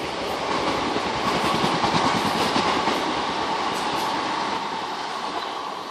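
Multi-car electric passenger train passing along the line, its wheels running on the rails. It is loudest about two seconds in and fades away near the end.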